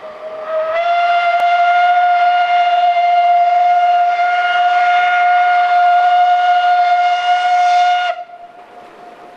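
Narrow-gauge steam locomotive whistle sounding one long blast, rising slightly in pitch as it opens fully, then cutting off sharply about eight seconds in.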